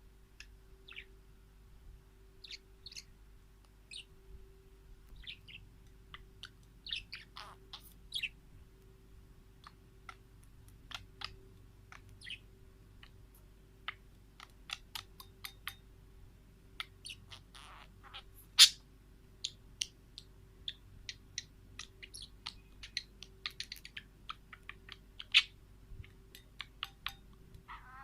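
Wild birds chirping and twittering in many short, sharp calls, scattered irregularly, with one especially loud chirp about two-thirds through. A faint steady hum runs underneath.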